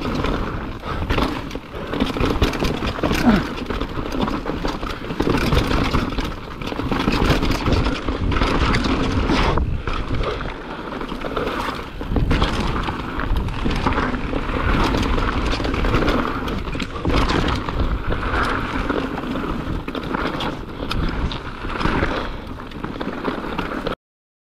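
Mountain bike ridden down a rough trail: a steady rushing of tyres and air, with frequent knocks and rattles from the bike over bumps. It cuts off suddenly near the end.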